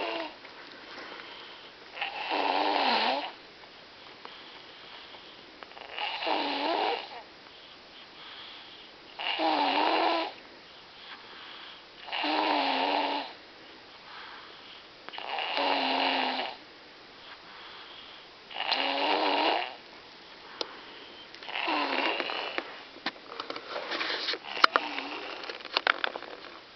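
A small child snoring loudly, like a freight train: eight long snores, one about every three seconds, with quiet breathing between.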